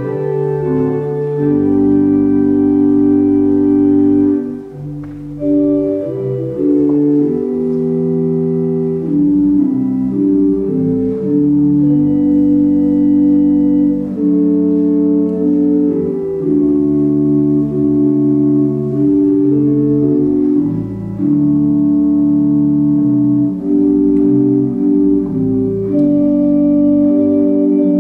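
Church organ playing a slow piece of sustained, held chords that change every second or two.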